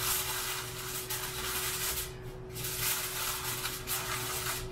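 Aluminium foil crinkling and rustling as it is pressed and crimped by hand over a baking tray, with a short break about two seconds in.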